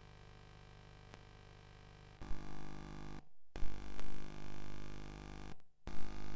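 Television sound from a satellite receiver while channels are being switched. First comes a faint steady low hum; after about two seconds loud background music from the channel starts, and it cuts out briefly twice as the receiver changes channel.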